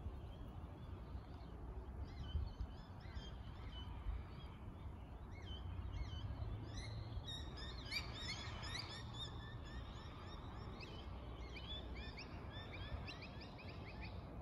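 Small birds chirping in quick, repeated short notes, busiest about seven to nine seconds in and again near the end, over a steady low wind rumble.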